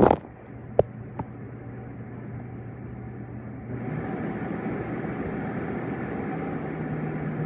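Console evaporative humidifier's fan running: a steady rush of air with a low hum, after a few sharp clicks near the start. About four seconds in it gets louder and its hum rises in pitch, as the fan steps up to a higher speed.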